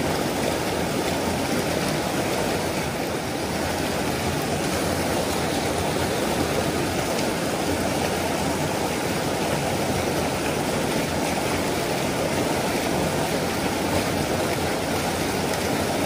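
Small mountain stream pouring over boulders in a little cascade: a steady rushing of water.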